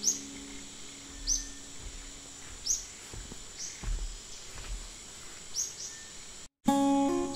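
Forest ambience: short, high, falling bird-like chirps repeating every second or so over a steady high insect whine. Near the end the sound drops out briefly and acoustic guitar music starts.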